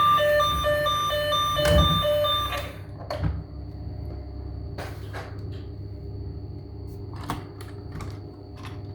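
A toy vehicle's electronic siren beeping rapidly, cutting off about two and a half seconds in. A few light clicks and knocks follow, with a faint steady high whine.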